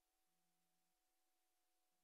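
Near silence: the film carries no soundtrack, leaving only very faint hiss and a few faint steady hum tones.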